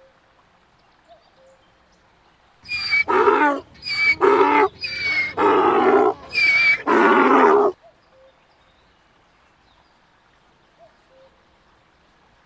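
A donkey braying: one run of loud hee-haws, about five seconds long starting near three seconds in. The calls alternate between high, wheezy in-breaths and lower, heavier out-breaths.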